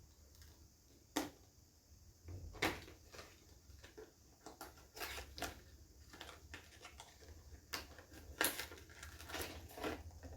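Perfume box and packaging being handled and opened: irregular small clicks and crinkles, eight or nine in all, spread unevenly, over a faint low hum.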